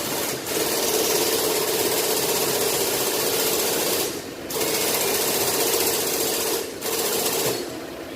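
A fuel injector pulsed on a cleaning rig, buzzing rapidly as it sprays a hissing jet of cleaner. It comes in three bursts: a long one, a shorter one about four seconds in, and a brief one near the end.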